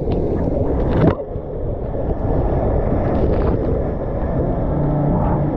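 Water rushing through an enclosed inner-tube water slide, with a sharp splash about a second in as the tube drops into the splash pool, then steady water noise and wind on the microphone.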